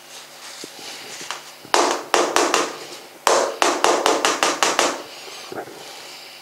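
Paper towel wiping a small glass jar in quick rubbing strokes. The strokes come in two runs: about five from just before two seconds in, then about eight more between three and five seconds in.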